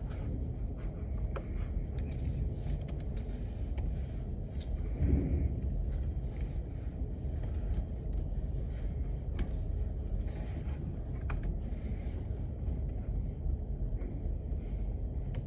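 Library room tone: a steady low rumble of building ventilation, with faint scattered clicks and taps such as keyboard typing, and a slightly louder low sound about five seconds in.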